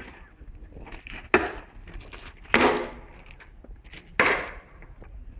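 Sledgehammer blows on a steel tool held against a freshly welded, still glowing rail joint: three hard metallic strikes about a second and a half apart, each ringing briefly.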